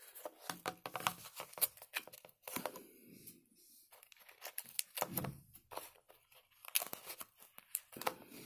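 Fingers tearing and crinkling the paper filter and plastic cup of an opened single-serve coffee pod, with coffee grounds spilling out: irregular crackling and rustling in short bursts.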